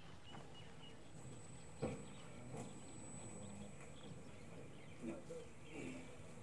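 Hushed ambience with a low hum, scattered faint clicks, one sharper knock about two seconds in, and a few short, faint, distant calls.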